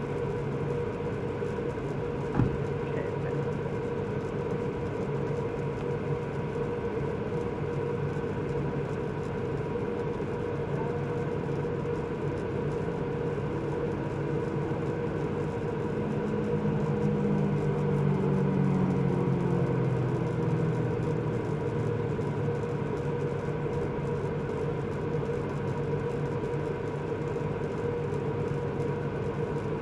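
1975 Chevrolet Caprice's V8 idling steadily, with a single thump a couple of seconds in. The engine note swells a little around the middle, then settles back.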